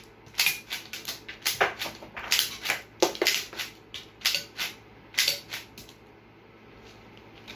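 A semi-automatic, shell-ejecting LEGO rifle firing rapidly: a quick, uneven run of sharp plastic clicks and clacks from the trigger and action cycling, mixed with the clatter of LEGO brick targets being knocked over. The clicking stops a couple of seconds before the end.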